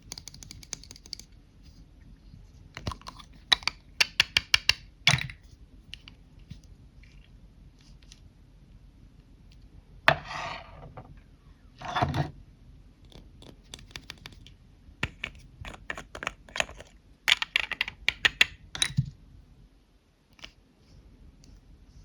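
Lipstick cases being handled and tapped: runs of quick, sharp clicks, with two longer, smoother sounds near the middle.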